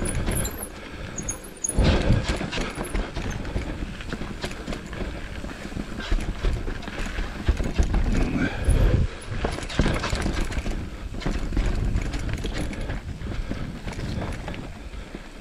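Mountain bike rolling fast over a rough, rocky forest trail: tyres crunching on dirt and stones, and the frame and chain rattling with a dense run of knocks. Two heavier thumps come about 2 seconds and 9 seconds in, as the wheels hit bumps.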